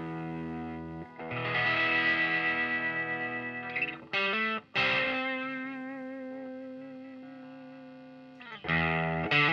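Electric guitar through the CA-108b's BC108 silicon fuzz into a valve Fender Super Twin Reverb, played with the guitar's volume knob turned down so the fuzz cleans up. A chord rings out and a new one is struck about a second in, a few quick notes follow around four seconds, then a chord is left to ring and fade before another is struck near the end.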